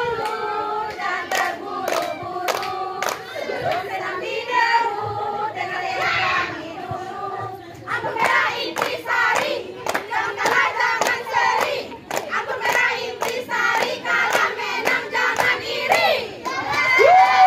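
A group of women singing a team cheer chant in unison, punctuated throughout by rhythmic hand claps.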